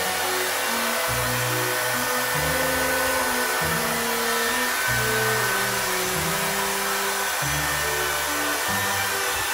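Small handheld power tool running steadily against a pumpkin, a constant motor whir, over background music with slow held bass notes changing about once a second.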